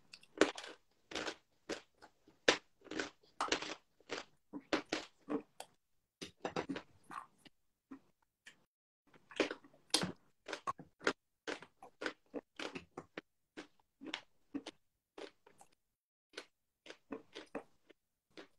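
Chunks of eating chalk being bitten and chewed: a run of sharp, dry crunches, about two a second, coming irregularly.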